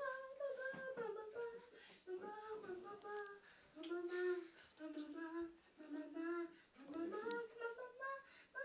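A young boy singing a tune, a string of short held notes in phrases with brief breaths between, in a small tiled room.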